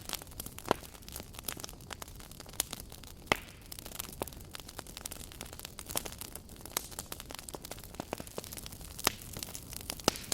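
Campfire crackling: irregular sharp pops and snaps of burning wood over a soft steady hiss, with a few louder pops about a second in, at about three seconds and near nine seconds.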